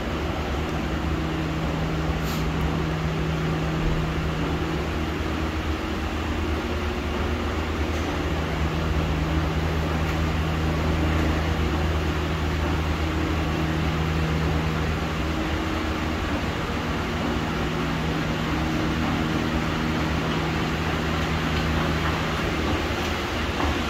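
Escalator running, a steady mechanical hum and drone whose pitched tones drop out briefly a few times.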